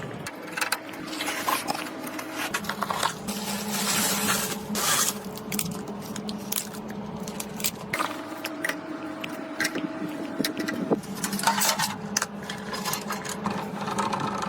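Computer parts and packaging being handled during a PC build: irregular clicks, clinks and short scrapes of hard parts, over a faint steady hum.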